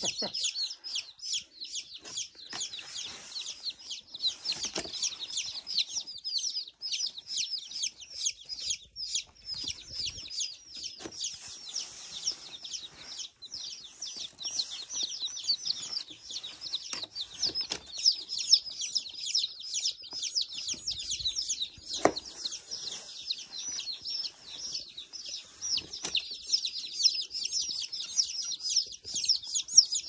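A brood of chicken chicks peeping continuously: many short, high, falling peeps overlapping into one unbroken chorus. A few soft knocks come from handling.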